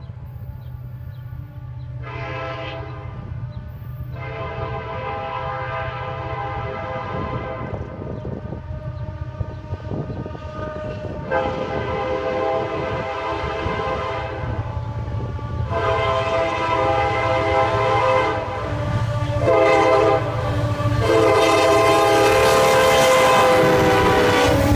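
Nathan K5LLA air horn on a Norfolk Southern SD70M-2 locomotive sounding a chord in two long blasts, then, after a pause, long, long, short, long: the grade-crossing signal. It grows louder as the train approaches, over the rising rumble of the diesel locomotives.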